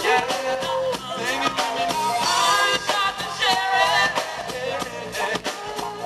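Live amplified reggae band playing: sung vocals over electric guitar, bass guitar and drum kit.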